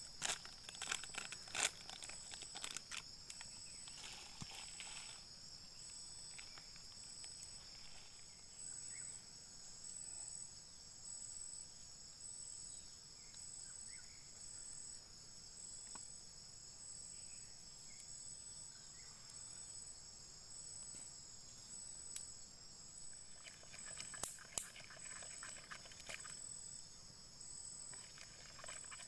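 Steady chorus of insects singing in two high-pitched tones, with scattered clicks and rustling at the start and again near the end.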